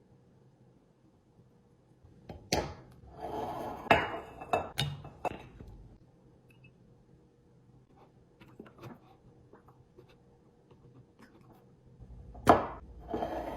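Containers and jars being set down and handled while a fridge is restocked: a run of sharp knocks and glassy clinks, then scattered light taps, and one more sharp knock near the end.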